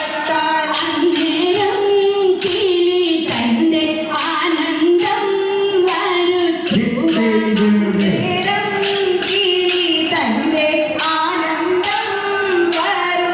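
Kolkkali: women's voices singing a folk song while pairs of short wooden sticks are struck together in time, a sharp clack about twice a second.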